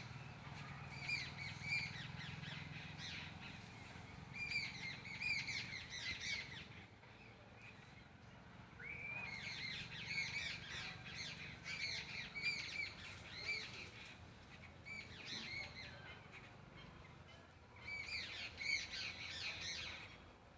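Birds calling in several bouts of quick, repeated falling calls, with short gaps between bouts, over a faint low rumble.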